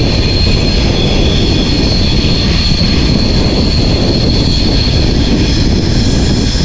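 Indian Railways express train running at speed, heard from outside the coach side: a loud steady rush of wind on the microphone mixed with the rumble of wheels on the rails, and a steady high whine above it.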